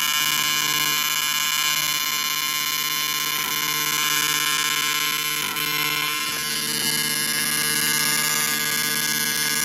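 AC TIG welding arc buzzing steadily while filler is laid into a cast aluminum cylinder head, the welder working the foot pedal and flooding the weld with shielding gas to keep it clean.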